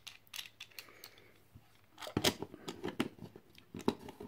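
Hard plastic parts clicking, knocking and scraping together as a clamp-ring adapter is handled and fitted onto a viewfinder housing. A few sparse clicks at first, then a dense run of clicks and rubbing from about two seconds in.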